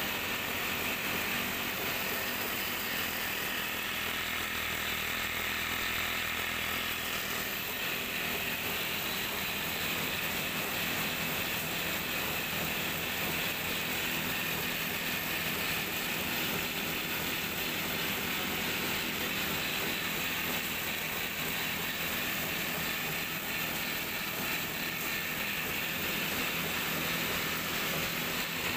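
Small petrol engine of a rice transplanter running steadily, with the rattle of its chain drive, gears and planting arms turning.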